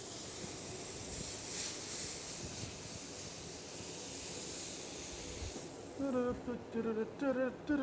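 Cherry tomatoes, olives and capers sizzling in a hot frying pan: a steady hiss that dies away about six seconds in as the pan comes off the heat. A person's voice follows briefly near the end.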